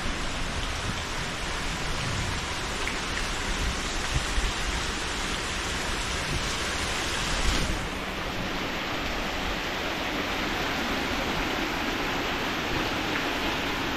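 Water flowing steadily over the edge of a large pond, a continuous rushing hiss, a little softer in its upper range about halfway through.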